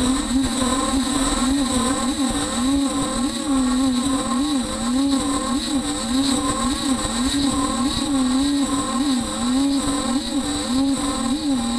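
Spindle of a Beaver HDZero CNC router milling 1/2-inch aluminum tool plate: a loud, continuous machining whine whose pitch keeps dipping and rising, with a thin steady high whine above it.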